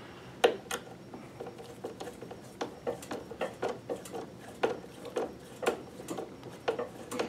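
Screwdriver driving a screw into the sewing machine's metal base plate: an irregular run of small metallic clicks and ticks, a few a second, some with a short ring, the sharpest about half a second in.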